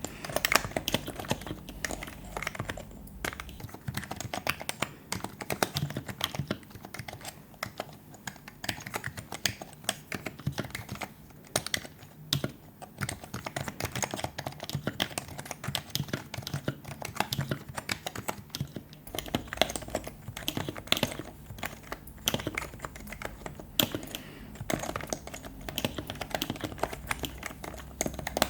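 Continuous typing on a Happy Hacking Keyboard's Topre switches: rubber domes over springs, keys pressed in quick, uneven runs of soft clicks.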